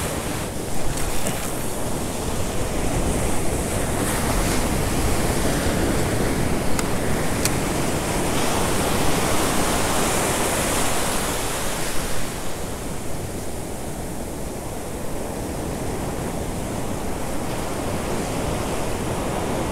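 Ocean surf breaking and washing up a sandy beach. The rush of the wash builds to its loudest around the middle and then eases.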